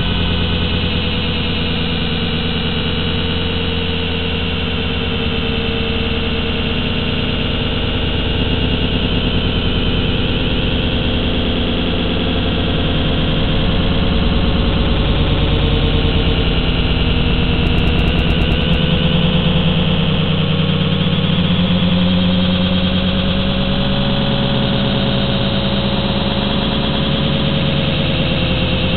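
Motors and propellers of a JJRC H8D quadcopter whining steadily, heard through the drone's own onboard camera microphone. Several tones drift slowly up and down in pitch as the motor speeds change, and the sound gets a little louder midway through.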